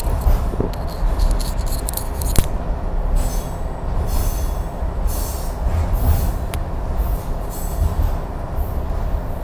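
Cockle Train carriage running along the track, heard from inside: a steady low rumble, with a couple of sharp clicks from the wheels and brief high-pitched wheel squeals that come and go.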